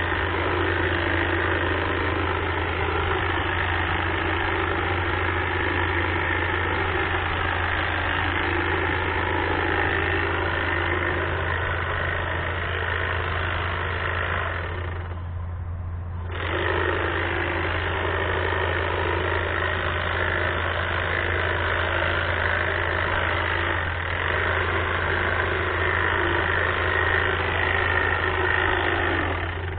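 Battery-powered hedge trimmer running steadily, briefly stopping about halfway, then running again until it cuts off at the end. A steady low hum continues underneath.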